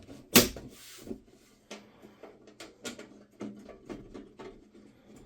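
Irregular clicks and knocks of hands handling the case and parts of a small-form-factor desktop PC, with one louder knock about half a second in.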